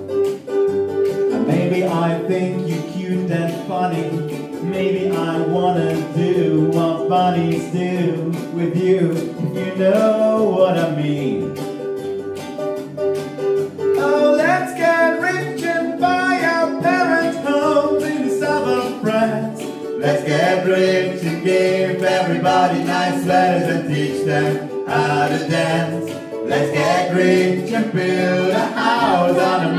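Small acoustic group playing: ukulele and acoustic guitar strummed, with voices singing and hand claps keeping the beat.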